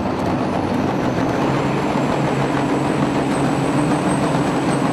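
Loaded semi-truck's diesel engine running hard at a steady pitch, with a thin high whine held above it.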